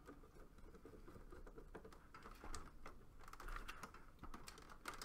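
Faint, irregular clicking and ticking of a screwdriver turning and tightening the screws on a Mitsubishi mini-split indoor unit's terminal block, clamping the wires between the terminal plates.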